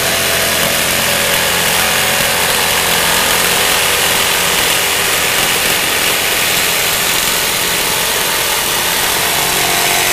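Jigsaw with a LENOX blade cutting through metal, running loud and steady. It stops suddenly at the very end as the cut is finished.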